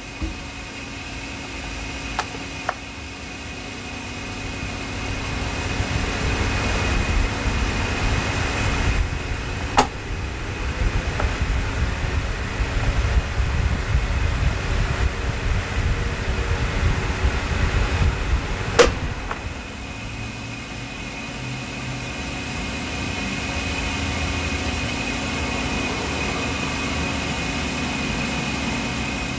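Electric desk fan running: a steady whoosh of moving air with a constant hum and a thin high whine. The air from the fan reaches the unshielded microphone as a low rumble that swells and eases. Two sharp clicks, about ten and nineteen seconds in.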